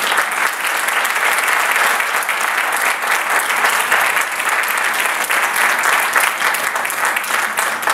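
Audience applauding, starting suddenly and continuing steadily as a dense clatter of many hands.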